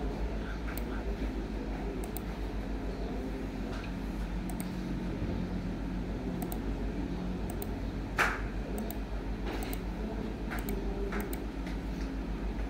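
Sparse clicks of a laptop's keys and mouse while a document is edited, one sharper click about eight seconds in, over a steady low hum.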